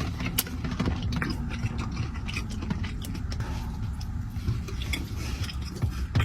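A person chewing a mouthful of sprinkle-covered donut: small irregular wet mouth clicks over a steady low rumble.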